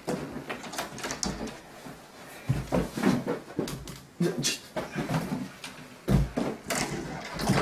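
Irregular knocks, bumps and shuffling as a limp body is handled and propped up inside a bedroom closet, with the closet door knocking.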